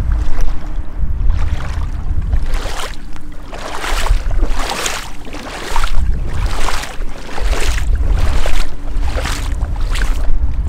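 Gumboot footsteps splashing through shallow floodwater and over wet gravel, a steady walking pace of roughly three steps every two seconds, with a low rumble underneath.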